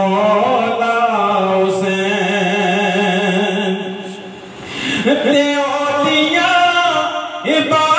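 Unaccompanied male voice singing a devotional praise song into a handheld microphone. It holds one long wavering note, breaks off briefly about four seconds in, then starts a new rising phrase.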